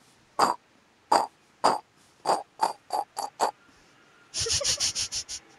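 Rubber squeaky dog toy squeezed again and again, about eight short squeaks coming quicker and quicker, then a rapid run of squeaks near the end as the Boston Terrier puppy grabs the toy.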